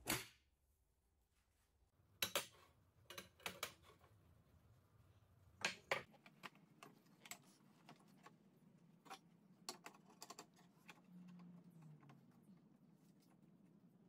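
Steel square tubing clinking and knocking as pieces are set down and slid into place on a wooden workbench: a sharp knock at the start, clusters of clacks about two to four seconds in and again near six seconds, then lighter, scattered ticks.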